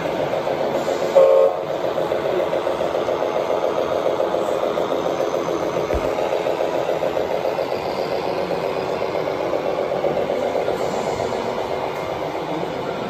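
Electronic diesel-engine sound from a scale RC truck's sound unit, running steadily with a fluttering idle-like texture, and a short louder tone about a second in.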